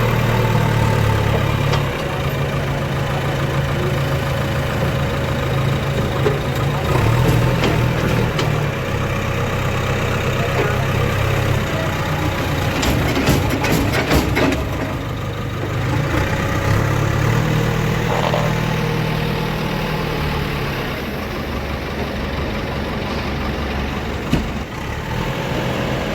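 A diesel engine running near idle, its note shifting up and down every few seconds. A few short knocks come about halfway through.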